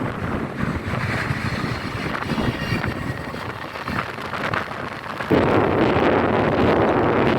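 A train running past with wind buffeting the microphone; the rumble steps up suddenly and much louder about five seconds in.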